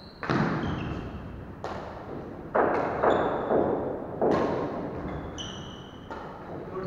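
Badminton rally: rackets striking the shuttlecock about six times, each hit a sharp smack with an echo from the large hall, with short high squeaks from shoes on the wooden court between the hits.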